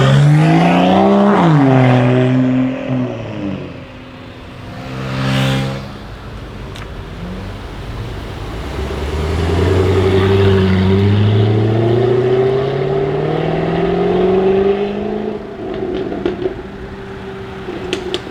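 Jaguar F-Type Project 7's supercharged V8 accelerating hard, its pitch climbing steeply and then dropping as the throttle is released about two seconds in. A brief whoosh of a car going past comes around five seconds in, then the engine pulls through a long, steadily rising run from about nine to fifteen seconds before the revs fall, with a few short sharp cracks near the end.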